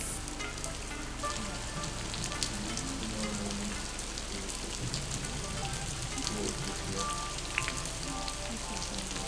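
Heavy rain falling steadily on grass and open ground, an even hiss scattered with the ticks of single drops.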